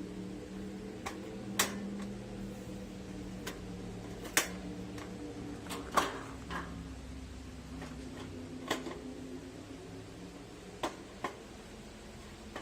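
Sheet-metal wood-stove parts clinking and tapping as they are fitted together: scattered sharp metallic knocks a second or two apart, over a steady low hum.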